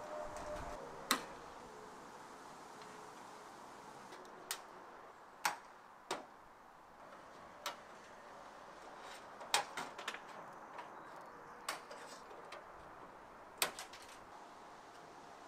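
Faint, sharp metallic clicks and taps, about a dozen at irregular intervals, from hand seaming pliers working the edge of a sheet-metal roof trim strip.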